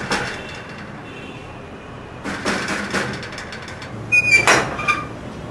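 Hand knocking on a wooden door with glass panes, a burst of knocks at the start and another about two and a half seconds in. About four seconds in comes a louder rattle with a short squeak as the door is unbolted and opened.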